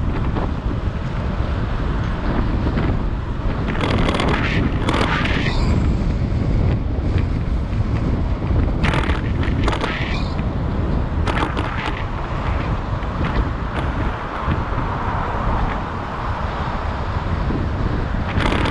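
Wind rushing over the microphone of a camera riding on a moving bicycle, a steady low rumble, with louder rushes about four and nine seconds in.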